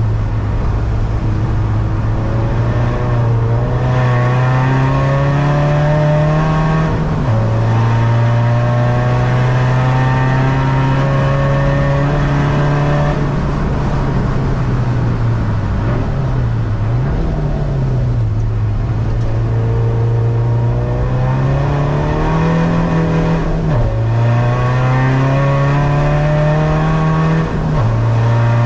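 The tuned 250 bhp diesel engine of a SEAT Ibiza, heard inside the cabin under hard acceleration. The note climbs steadily through each gear and drops sharply at upshifts about seven seconds in and twice near the end, with a brief dip and recovery in the middle as the throttle is lifted and reapplied.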